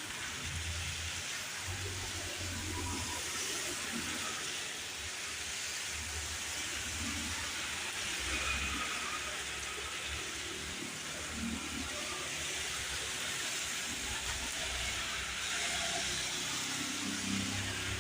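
Steady rain falling, an even hiss throughout, with a low rumble that comes and goes underneath.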